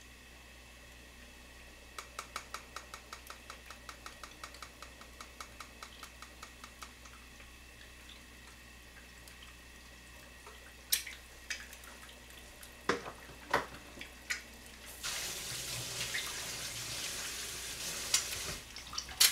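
Pepper being worked out of a small metal pepper container over a spoon, making about five light clicks a second for several seconds. Then comes a few sharp clinks of a spoon against the pot, and a few seconds of the soup being stirred, ending in a couple of clinks.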